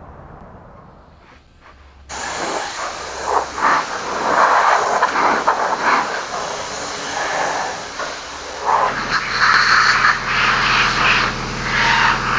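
Compressed air from an air-compressor blowgun hissing in uneven bursts, starting suddenly about two seconds in, to blow sanding dust off the frame. Near the end the air compressor's motor starts and runs with a steady hum under the hissing.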